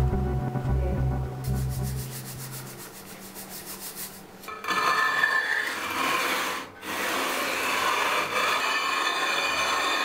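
A lithographic crayon rubbed and scraped across the grained surface of a lithography stone, a dry scratchy rubbing that starts about halfway through. Music with low bass notes fades out in the first couple of seconds.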